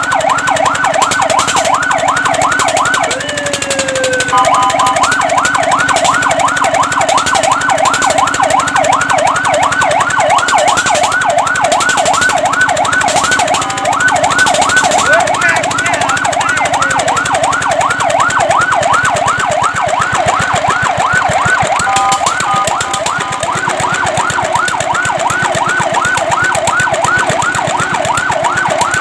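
Fire truck siren sounding a fast yelp: quick rising sweeps repeating about four times a second. The pattern briefly breaks into a falling glide about three seconds in, and for stretches later a steady two-note tone sounds along with the sweeps.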